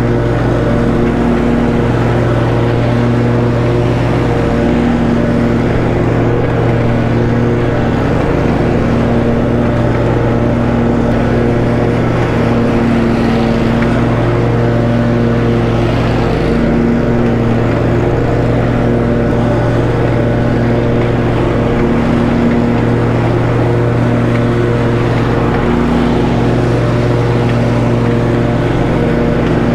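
Snapper Pro walk-behind lawn mower running steadily at full speed while cutting grass, a constant engine hum that wavers slightly.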